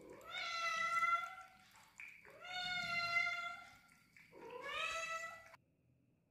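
Cat meowing three times: long drawn-out meows, each rising at the start and then held. The last one cuts off abruptly.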